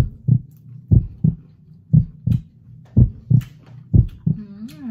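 Deep double thumps about once a second, like a heartbeat, over a low steady hum: a backing track laid under the video. Faint crunching as battered fried calamari is chewed, and a short hummed "mm" near the end.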